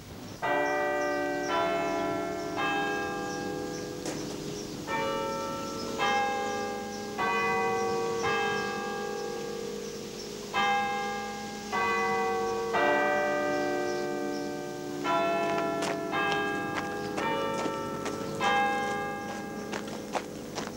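Church bells ringing: different bells struck one after another about a second apart, each note ringing on and fading. They come in short groups of three or four strokes with pauses of a couple of seconds between.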